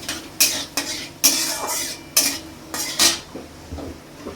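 Metal kitchen utensils clinking and scraping against a metal pan, with about seven sharp, irregular clinks.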